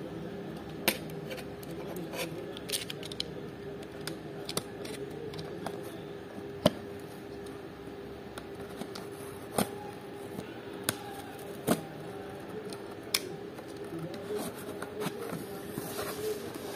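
Snap-off utility knife slitting packing tape on a cardboard box, with irregular sharp clicks and scrapes as the blade and box are handled, over a steady low hum.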